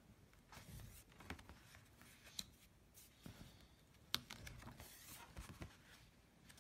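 Drawing strokes scratching across paper with dry drawing media, faint and irregular, with a few sharp clicks, the loudest a little after four seconds in.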